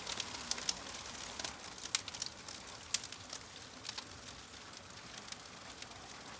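Campfire crackling: a soft steady hiss with irregular sharp pops and snaps, a few each second.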